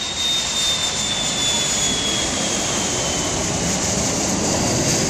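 Jet airliner on final approach to land. Its rear-mounted Pratt & Whitney JT8D turbofans give a steady rushing noise with a high whine that slowly falls in pitch as the aircraft passes, growing a little louder.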